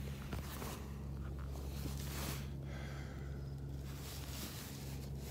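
Soft swishing of nylon tent and sleeping-bag fabric as the phone is handled and moved, a few brief rustles over a steady low hum.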